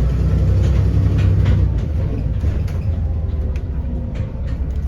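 Volvo B7RLE bus's diesel engine and ZF automatic gearbox running under load, heard from inside the saloon as a loud, deep drone with short clicks and rattles from the body. The engine is one whose injectors are described as bad.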